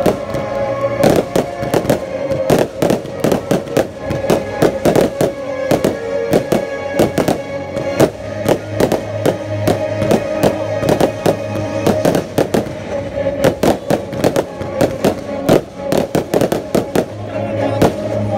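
Fireworks display: a dense, irregular run of bangs and crackles from aerial shells bursting, with music playing underneath.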